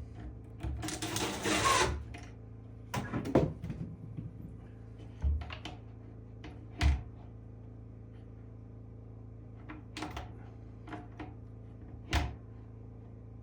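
Woodworking handling sounds: a brief scrape about a second in, then scattered knocks and clacks of wood and tools being set down and moved, over a steady low hum.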